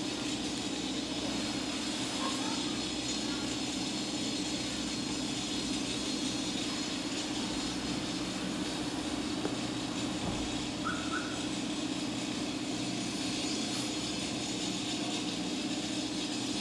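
Steady background noise: a constant low hum under an even hiss, with no distinct events.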